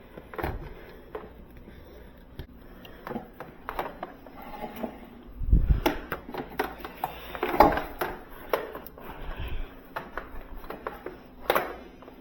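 Handling sounds: irregular clicks, knocks and light clattering as thermostat wire and tools are worked by hand, with the loudest knocks about five and a half and seven and a half seconds in.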